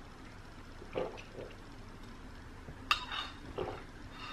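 Drinking through a straw from a glass: a few soft sips and swallows, then a sharp glassy clink about three seconds in.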